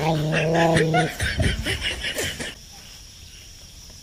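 A low held growl lasting about a second, then short snickering laughter; the last second and a half is quieter.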